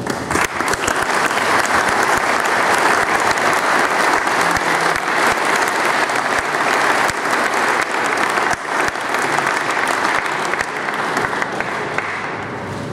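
An indoor audience applauding: steady, dense clapping that starts suddenly and eases slightly near the end.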